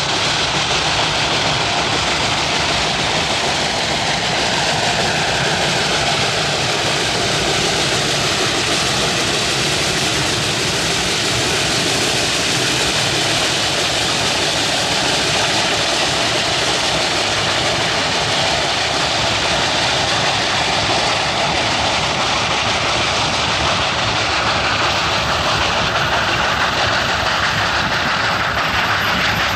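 Steam locomotive hauling a freight train past, working with heavy exhaust: a steady, loud rush of exhaust and running gear on the rails.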